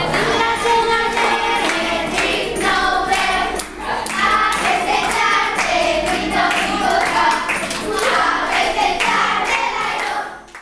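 A class of children singing a traditional Valencian song together in unison, clapping along in a steady rhythm. The singing and clapping cut off abruptly near the end.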